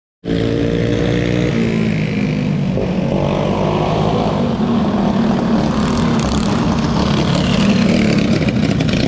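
Several dirt-track racing go-kart engines running hard as a pack laps the oval, their pitches shifting and rising, growing slightly louder as the karts sweep past near the end.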